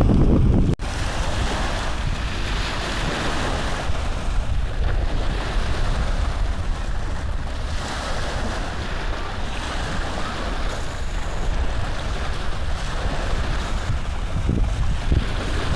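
Rustling and rubbing noise close to the microphone from cross-stitch cloth and hands being handled as a needle is worked through the fabric, with a brief dropout about a second in.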